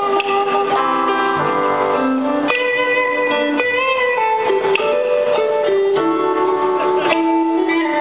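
Live blues band playing, with guitar notes to the fore over keyboard and drums.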